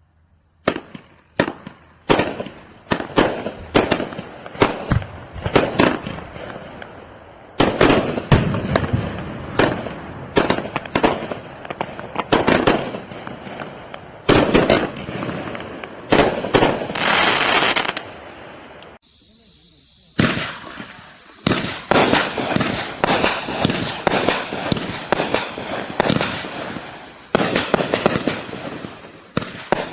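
A 200-gram consumer firework cake firing its shots in quick succession, each shot a sharp launch and burst. The firing stops briefly about two-thirds of the way through, then starts again.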